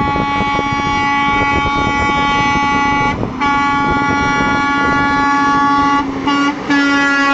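Semi-truck air horn blaring in long held blasts, a chord of several tones, broken by short gaps about three seconds in and again near the end. Truck engines and tyre noise run underneath.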